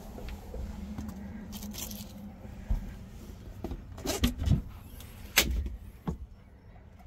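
Boat floor hatch lid being unlatched and lifted open: a string of knocks and clicks, the loudest a sharp click a little after five seconds in. A low steady hum underlies the first couple of seconds.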